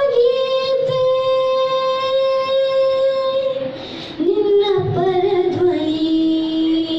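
A boy singing a Kannada bhavageete (light poem-song) into a microphone, amplified through a PA speaker. He holds one long note, breaks off briefly about four seconds in, then holds a lower note with small ornamental turns.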